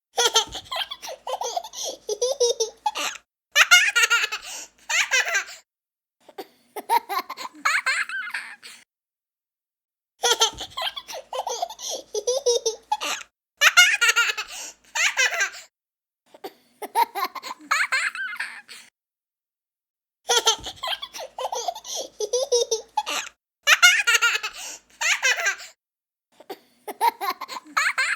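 A young child laughing hard in bouts of giggling a few seconds long, broken by short silences. The same laughing sequence repeats about every ten seconds, as a looped recording.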